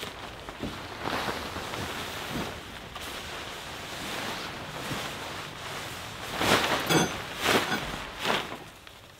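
A large tarp rustling and swishing as it is pulled over a pickup truck's camper shell, with several louder swishes in the last few seconds.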